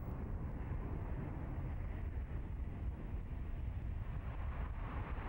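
Lockheed C-130 Hercules's four turboprop engines and propellers droning as the aircraft flies in low to land: a steady noise, heaviest in the low rumble.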